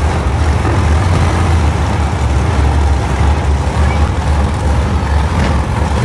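Monster truck engines idling together, a loud, steady, deep rumble.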